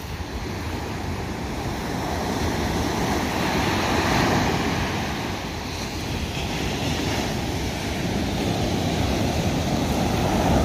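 Sea waves breaking on the shore: a steady rushing surf that swells about four seconds in and again near the end.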